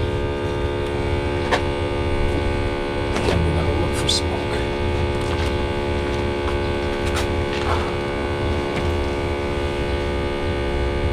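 Smoke tester's air pump running with a steady hum, pushing smoke into a car's intake manifold during a vacuum-leak test. A few light clicks sound over it.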